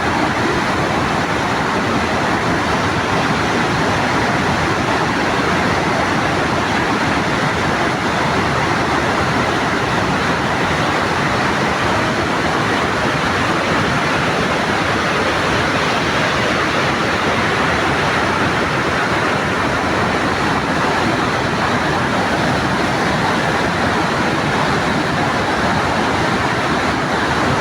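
Victoria Falls' falling water: a loud, steady rushing noise that does not change.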